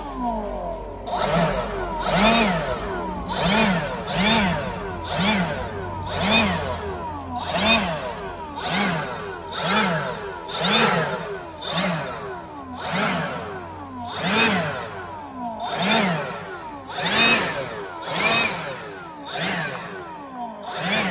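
Handheld leaf blower running, blowing ash off a car's bodywork. Its whine rises and falls in pitch about once a second.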